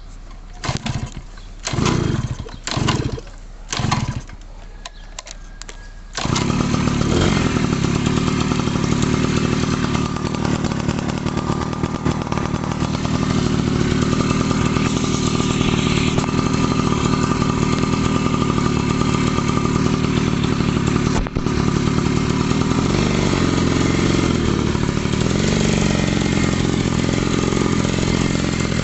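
Daelim motorcycle engine cold-started: four short starting attempts in the first few seconds, then it catches about six seconds in and runs steadily, with a brief dip about two-thirds of the way through. The engine is still being run in after repairs.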